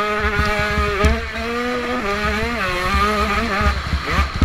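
Motocross bike engine heard from on board at race pace, its pitch climbing and then dropping several times as the rider works the throttle and gears.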